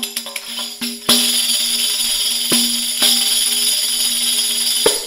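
Turkish riq, a fish-skin frame drum with hammered jingle cymbals, played in an improvisation: a run of quick strokes on the head with jingles, then from about a second in a continuous shimmering jingle roll, accented by two more head strokes, stopping near the end.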